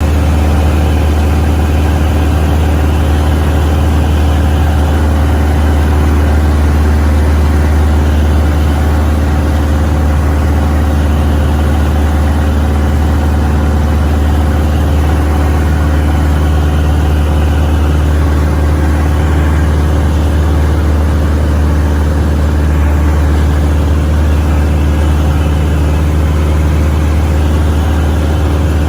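An engine running steadily with a deep, even low hum and no revving.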